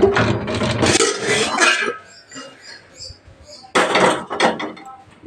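Metal cookware being handled, a kadai and steel pots clattering and scraping. There is a dense clatter for about the first two seconds, a few light clinks, and another short clatter about four seconds in.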